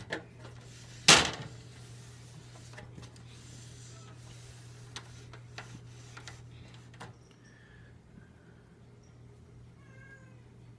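A sharp knock about a second in, then a few lighter clicks and bumps as the box fan's cabinet is handled and turned around, over a steady low hum. A cat meows faintly near the end.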